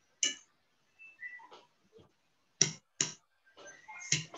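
Four short, sharp clicks, spaced out with quiet between them, two of them close together near the middle.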